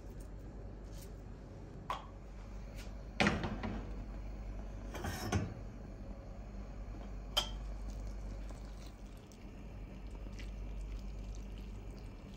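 A few separate clunks and clinks of a metal cooking pan and utensils being handled, the loudest about three seconds in, over a low steady hum.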